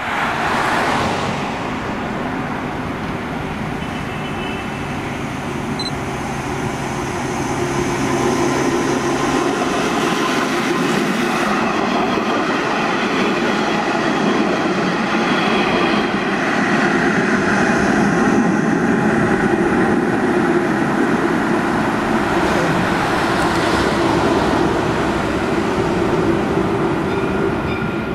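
Alstom Citadis 402 electric tram running past on its rails, a steady rumble of wheels on track with a faint whine from the drive.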